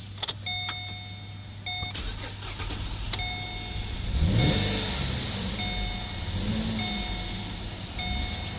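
Holden VE Commodore's 3.6-litre LLT V6 starting up about four seconds in and then idling. Over it the car's warning chime sounds repeatedly, about a second at a time.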